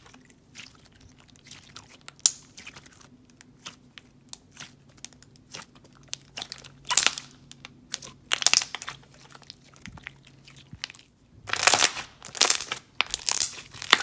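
Hands squishing and folding a thick, glossy glue-based slime, making irregular wet clicks and air-bubble pops. The pops come sparsely at first and bunch into louder runs about halfway through and again near the end.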